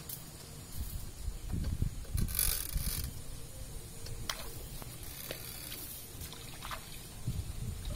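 Knapsack crop sprayer in use while its wearer wades through a wet rice paddy: uneven swishing and sloshing from steps through the rice, with scattered clicks and creaks from the sprayer, and a brief hiss about two and a half seconds in.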